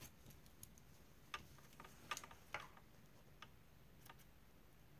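Faint, scattered light clicks and taps as small thread snips and the fabric are handled at the sewing machine; a few sharper clicks come about a second and a half, two, and two and a half seconds in.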